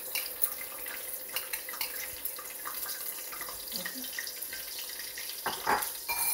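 Beaten eggs sizzling and crackling in hot fat in a stainless steel pan, a steady hiss dotted with small pops. A louder clunk comes near the end.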